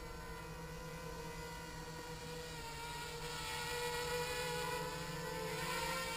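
HK 250 mini quadcopter's four brushless motors and propellers whining steadily in flight, growing louder about halfway through as it climbs close over the camera, the pitch wavering near the end with throttle changes.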